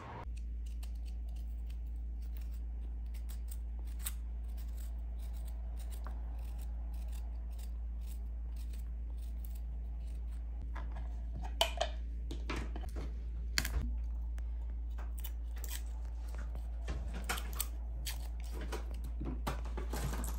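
Spoon scraping the peel off fresh ginger root on a wooden cutting board: many short scratchy strokes and clicks, over a steady low hum.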